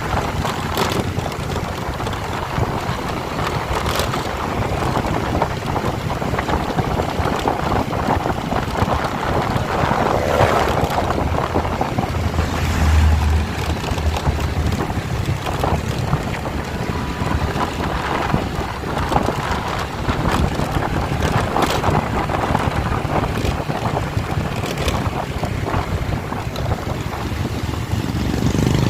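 An engine running steadily under heavy wind noise on the microphone.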